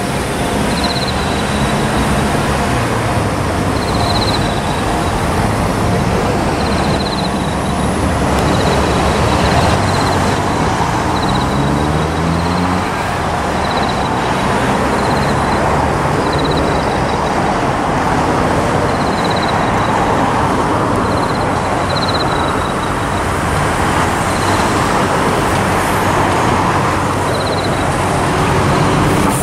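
Steady road traffic noise with an engine running in it, its pitch rising about twelve seconds in.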